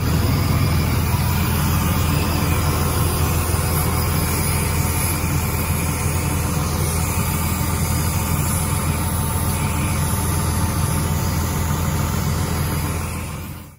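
Freightliner XC diesel-pusher motorhome's engine running steadily, heard from under the chassis: a constant low rumble with a broad hiss over it, fading out near the end.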